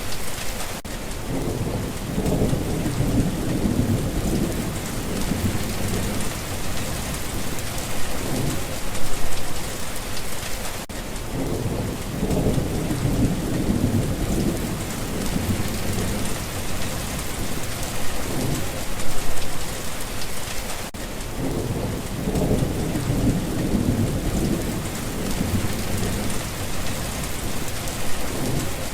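Steady heavy rain falling, with low rolling rumbles of thunder swelling up about every ten seconds.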